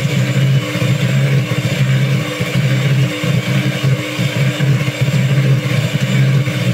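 Electric hand mixer running with its beaters in a plastic bowl, a steady motor hum that wavers in level.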